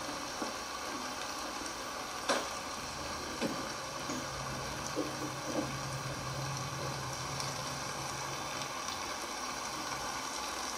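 Mutton tomato gravy in a kadai sizzling softly on its own heat just after the gas is switched off, with a few light clicks.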